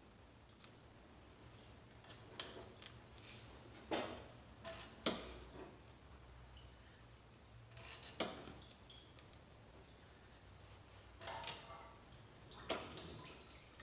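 Loose steel engine bolts being handled and clinking against each other and against metal: scattered clicks and short metallic clinks at irregular intervals, a few of them ringing briefly.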